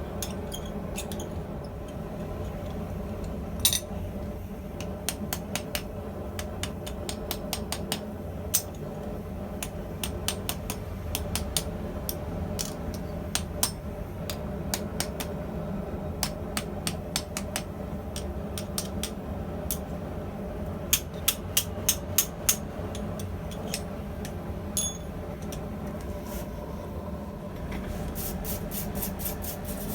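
Hammer striking steel on an anvil while forging a hinge, mostly light irregular taps, with a run of about six harder blows a little past two-thirds of the way through and a quick even series of taps near the end. A steady low hum runs underneath.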